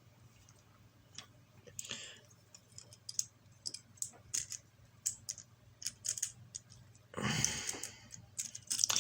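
Small LEGO plastic pieces clicking and snapping together while a set is assembled, with quick irregular clicks and one louder rustling rattle of handled pieces about seven seconds in.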